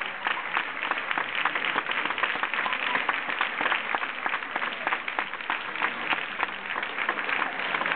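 Crowd applauding: steady, dense clapping from a large audience.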